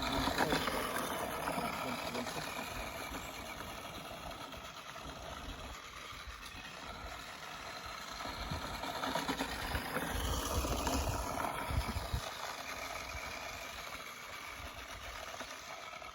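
Electric motor and drivetrain of a vintage battery-powered radio-controlled car whining as it is driven, the pitch rising and falling with the throttle, most noticeably about ten seconds in.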